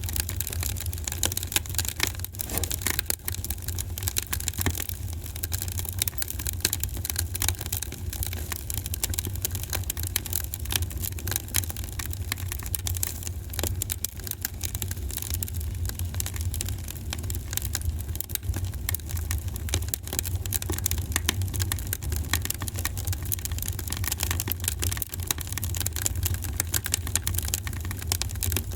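Wood fire crackling and popping in a fireplace: a dense, irregular stream of sharp snaps over a low, steady rumble of the flames.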